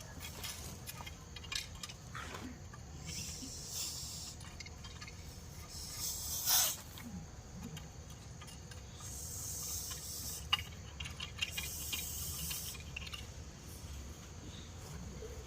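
Russell's viper hissing: several long hisses a few seconds apart, the one about six seconds in the loudest. A few sharp clicks come between them near the middle.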